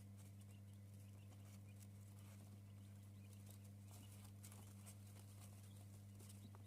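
Near silence: faint, scattered light taps of quail pecking and stepping over a steady low hum.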